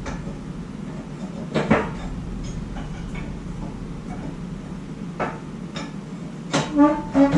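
A few separate knocks and clatters over a steady low hum, with a quicker run of clattering near the end.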